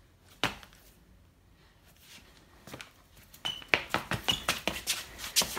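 A single knock, then from about three and a half seconds in a quick patter of running steps and paw clicks on a tiled floor, about five a second, as a Samoyed puppy and a person chase each other.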